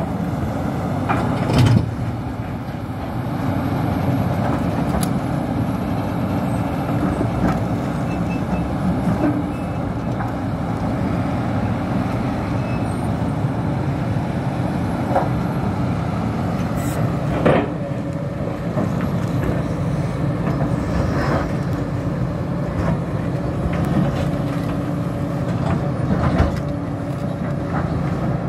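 Hidromek HMK 390LC crawler excavator's diesel engine running steadily under load while digging and loading rock, with a few sharp knocks of bucket and rock: one about two seconds in, two close together past the middle, and one near the end.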